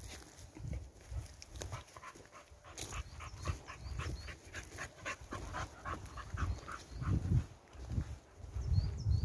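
A dog panting quickly, about four or five breaths a second, with a few low thuds near the end.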